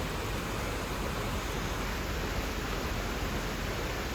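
Steady, even rush of flowing water, a waterfall's or fast stream's constant noise.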